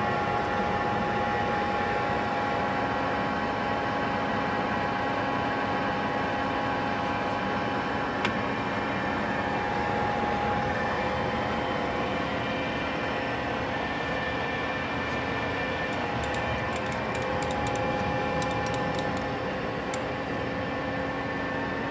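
Clausing Colchester engine lathe running steadily, its geared headstock giving a steady hum with a whine of several tones. A single sharp click about eight seconds in.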